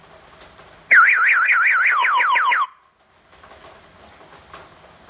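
Motorcycle sound system's built-in anti-theft alarm, just armed, sounding a short siren: a quick warbling tone about a second in that ends in a run of fast falling sweeps and stops after under two seconds.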